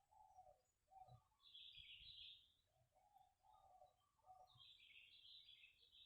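Faint birdsong: short low calls repeated in phrases, with two bursts of higher, busier chirping from another bird.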